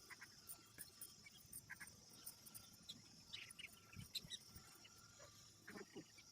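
Faint outdoor quiet: a steady high-pitched insect drone, with scattered small clicks and rustles of bean plants being picked.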